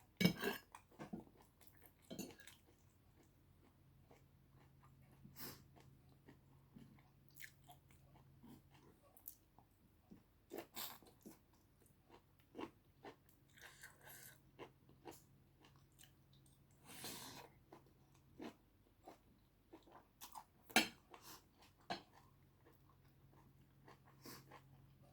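A person chewing food close to the microphone, with irregular crunches and wet mouth clicks.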